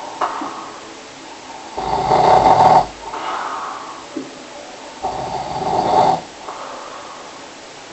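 A person snoring in a steady rhythm: two loud snores about three seconds apart, around two and five seconds in, each followed by a quieter, breathier sound.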